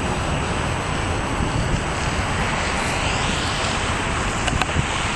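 Wind rumbling on the microphone over the engines of a twin-engine radio-control C-47 model plane, the engine sound growing louder from about three seconds in as the plane comes in toward the field. A couple of brief clicks near the end.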